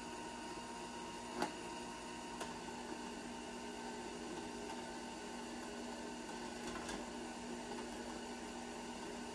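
Steady low electrical hum of a quiet kitchen, with one sharp knock about a second and a half in and a few faint taps later, from a plastic milk jug and butter being handled over a glass mixing bowl. The stand mixer is not running.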